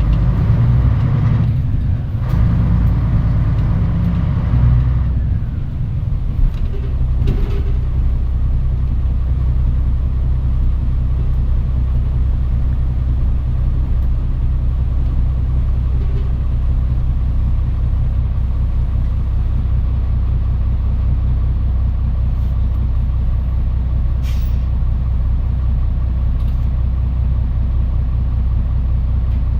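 Diesel engine of a Mitsubishi Fuso Aerostar city bus, heard from inside the cabin. It runs harder for the first few seconds, then settles about five seconds in to a steady low rumble, like the bus standing at idle. There is a short hiss of air, typical of the air brakes, a little past the middle.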